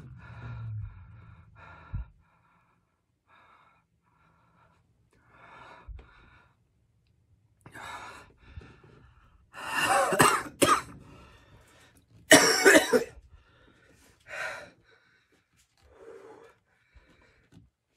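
A man coughing hard, with the loudest coughs near the middle, between heavy, labored breaths and blowing out through pursed lips. The coughing comes from the capsaicin burn of extremely hot jerky in his mouth and throat.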